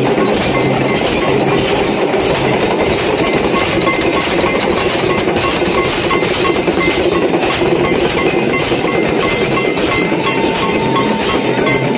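Temple aarti bells and percussion clanging continuously in a fast, steady rhythm, with metallic ringing over a dense clatter.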